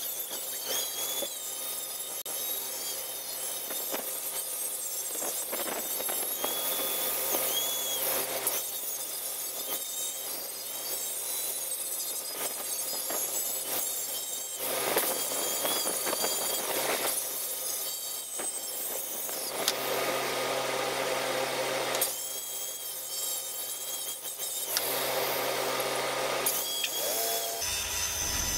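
Angle grinder grinding a cast steel anvil, taking the hard casting skin off to clean the surface. It is a steady high whine, its tone changing every few seconds as the disc is worked over the steel.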